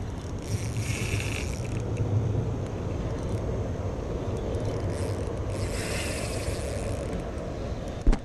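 Steady low rumble of wind and handling noise on a body-worn action camera, with two stretches of higher hissing, and a sharp knock as a hand bumps the camera near the end.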